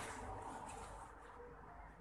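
A light knock, then faint handling and rubbing sounds as a plastic PVC pipe is pulled out from behind a vacuum cleaner.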